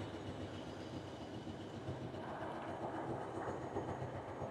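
CP Class 1400 diesel-electric locomotive idling at a standstill: a steady low engine hum.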